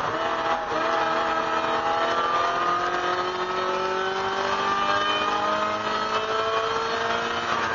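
1999 Mazda MX-5 Miata race car's four-cylinder engine, heard from inside the cabin, pulling hard in one gear with its pitch climbing steadily for about seven seconds, then dropping near the end as it shifts up. Road and wind noise run underneath.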